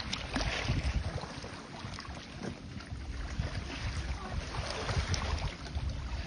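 Wind buffeting the microphone over water, with a low uneven rumble and a few light knocks.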